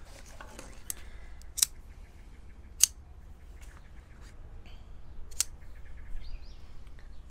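Shock-corded tent pole sections being snapped together: a few sharp clicks, the loudest about three seconds in, with faint handling rattles between them.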